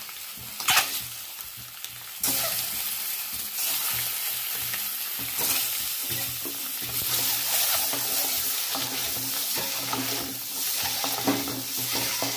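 Peeled hard-boiled eggs frying in oil and spice powders in an aluminium kadai, making a sizzling hiss that starts suddenly about two seconds in and runs steadily. There is a sharp knock just before a second in, and a ladle stirs the eggs near the end.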